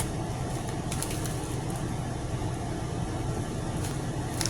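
Steady low rumbling background noise from an unidentified source, with a few faint clicks.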